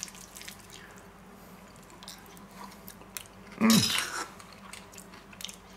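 A fork stirring potato salad in a small stainless-steel bowl, with faint light clicks and scrapes. About two-thirds of the way through, one short low vocal sound falls in pitch, like a grunt or throat clearing.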